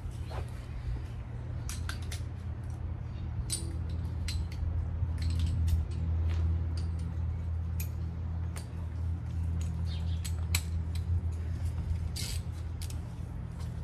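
A steady low hum with scattered faint metallic clicks and clinks.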